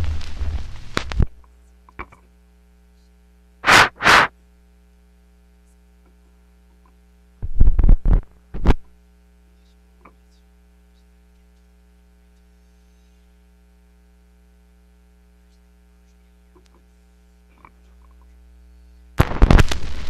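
Steady low electrical hum over near silence, broken by loud, sudden short bursts: two close together about four seconds in and three more around eight seconds. A loud rough noise stops about a second in and starts again near the end.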